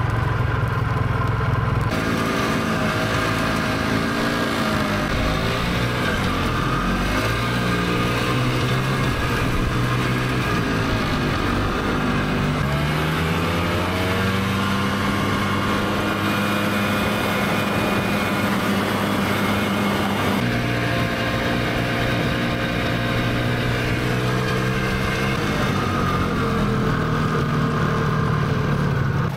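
A small vehicle engine running, its pitch rising and falling as it is throttled and driven, with a change in engine speed about twenty seconds in.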